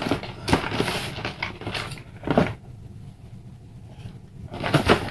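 A large cardboard LEGO set box handled close to the microphone: several rubbing, scraping and knocking noises as it is shifted and tilted, the sharpest about two and a half seconds in and another group near the end.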